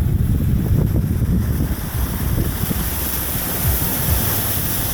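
Floodwater rushing through a street, with wind buffeting the microphone over a low, steady rumble.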